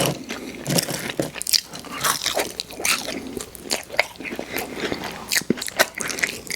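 A person chewing and biting fast food close to the microphone: irregular wet mouth clicks and crunches, several a second.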